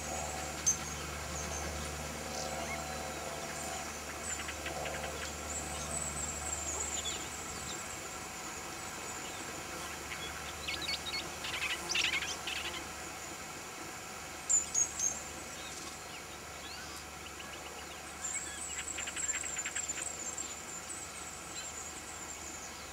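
Outdoor ambience of wild birds chirping and trilling, high-pitched and scattered, with a faint low hum that fades out after the first several seconds.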